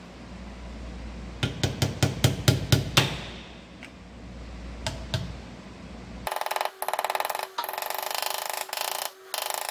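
Light hammer taps driving a new pinion seal into a Dana 30 axle housing: a quick run of about ten sharp metallic taps, then a few single taps. About six seconds in, the sound turns into a thin, high, continuous clatter with a steady tone through it and no low end.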